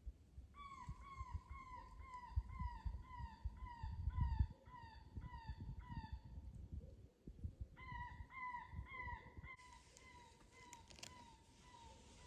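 ICOtec electronic predator caller playing a distance-softened animal distress call: a run of short squealing cries, about two a second, each dipping slightly in pitch, a pause, then a shorter run. Low uneven rumbling lies underneath.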